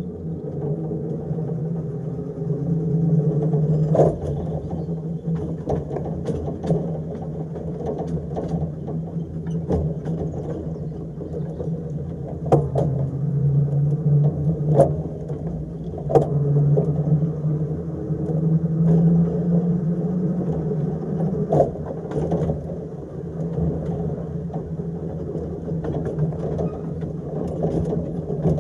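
Electric tram running along narrow-gauge track: a steady hum from its traction motors and running gear, with sharp clicks and knocks of the wheels over rail joints at irregular intervals.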